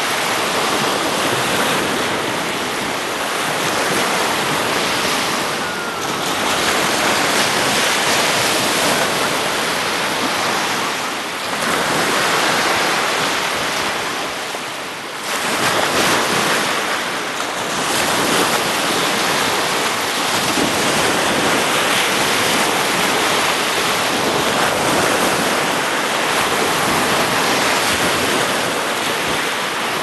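Small sea waves washing up a sandy beach: a continuous hiss of surf that swells and eases, dipping briefly about six, eleven and fifteen seconds in.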